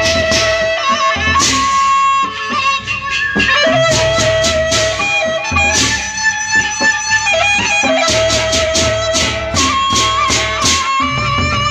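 Lombok gendang beleq ensemble playing: a suling bamboo flute carries a sliding melody over the large barrel drums, with clusters of clashing hand cymbals in the middle and later part.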